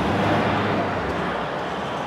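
Pickup truck driving off on a gravel road, its engine and tyre noise loudest at first and easing off as it pulls away.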